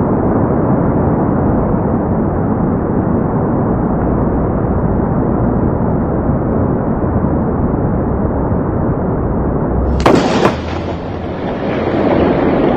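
Nearby lightning strike in a thunderstorm. A steady, loud rushing storm noise is broken about ten seconds in by a sharp, sudden thunderclap, which then trails off into a rumble.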